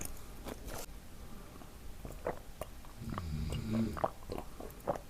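A man snoring, with one drawn-out snore about three seconds in, while a Dubai chewy cookie is bitten and chewed with scattered crisp crunches.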